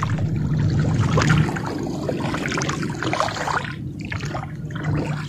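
Water splashing and trickling, an uneven watery sound that eases off a little in the second half.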